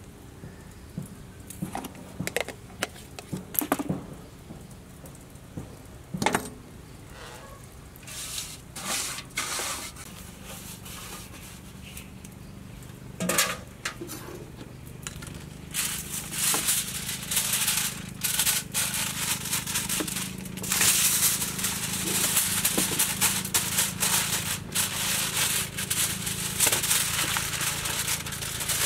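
Aluminium foil crinkling and rustling as it is folded up around a salmon fillet into a parcel. The crinkling is dense and continuous through the second half, after scattered light clicks and taps in the first half.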